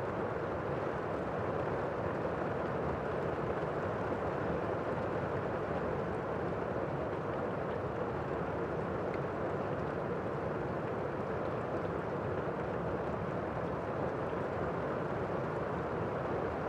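Steady rain falling, an even, dull rushing hiss that stays low in pitch without change or thunder.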